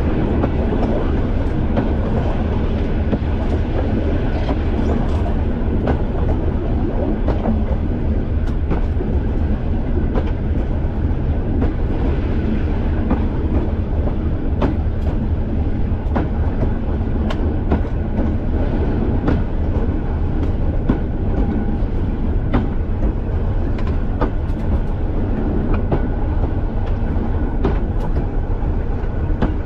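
Class 205 'Thumper' diesel-electric multiple unit running along the line: the steady throb of its English Electric diesel engine with the rumble of the wheels. Short sharp clicks come irregularly as the wheels pass over the rail joints.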